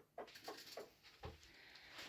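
A run of soft, quick taps or knocks, about four in the first second, with a short soft hiss near the end.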